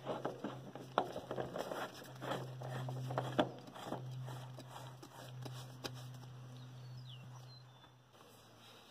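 Rubbing and clicking of a spin-on hydraulic filter being turned by hand onto its filter head, busiest in the first few seconds, over a steady low hum that stops about a second before the end.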